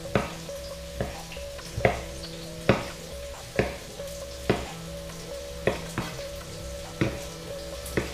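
Kitchen knife cutting tomatoes on a wooden cutting board, a sharp knock about once a second as the blade meets the board, over a steady sizzle of chicken breast frying in coconut oil in a pan.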